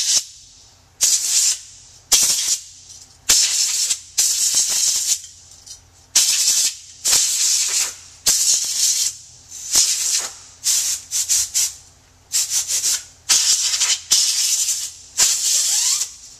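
Canned compressed air blasting through a straw nozzle to blow dust out of a laptop's cooling fan and heatsink assembly. It comes as a rapid series of short, sharp hissing bursts, well over a dozen, about one a second, each under a second long.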